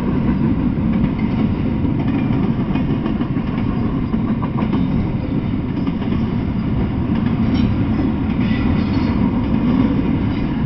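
Double-stack intermodal freight train rolling past, its well cars' wheels rumbling steadily on the rails.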